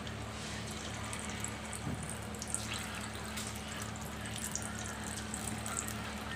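Coated chicken pieces deep-frying in hot oil on high flame: a steady sizzle with light crackling. More pieces are dropped in one at a time.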